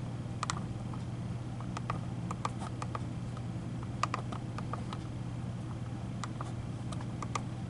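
Small keys being tapped on a Brother P-touch PT-H110 label maker's keypad: irregular single clicks as label text is typed. A steady low hum sits underneath.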